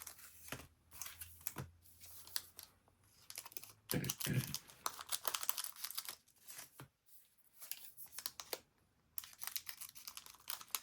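Trading card packaging and cards being handled: crinkling and tearing of booster pack wrappers mixed with quick clicks of cards being flicked and stacked, busiest about four seconds in.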